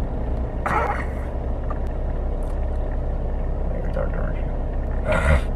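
Steady low rumble of a car's engine and tyres, heard from inside the cabin while driving, with two brief bursts of noise, one about a second in and one near the end.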